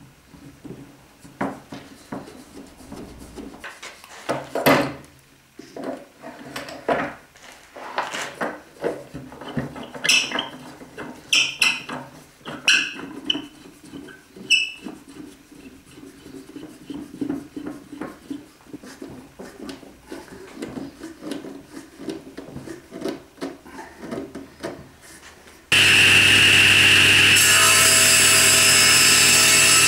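Wooden bar clamps being tightened around a glued wooden box: irregular knocks, clicks and a few short squeaks from the turning clamp screws and shifting boards. About 26 seconds in, a table saw running comes in suddenly and stays loud and steady.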